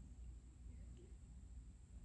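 Near silence: faint outdoor ambience with a low rumble and a faint steady high hiss.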